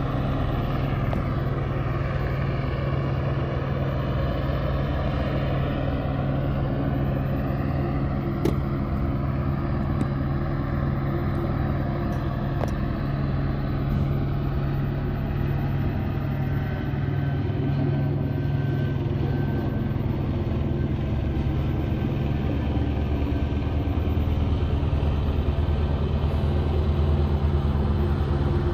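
Police helicopter circling overhead: a steady low drone of rotor and engine that grows a little louder near the end.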